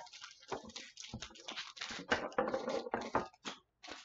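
Foil wrapper of a Pokémon booster pack crinkling and crackling as it is handled and torn open by hand, in an irregular run of rustles.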